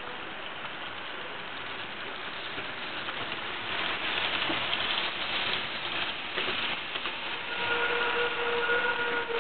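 H0-scale model train running along its track, a hissing rattle of wheels on the rails that grows louder about four seconds in as it passes close by. A steady whine joins near the end.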